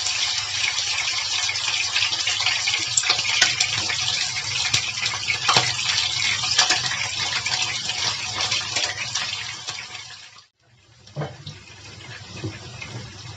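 Raw chicken pieces sizzling in hot frying oil in a wok as they are laid in, a dense hiss with scattered pops and crackles. The sizzle cuts out abruptly about ten seconds in, then comes back quieter.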